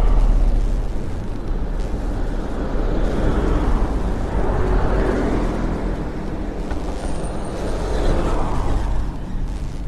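Motor vehicles passing close by on the road, one swell of tyre and engine noise about halfway through and another near the end as a truck goes by, over a steady low rumble of wind on the microphone of a moving bicycle.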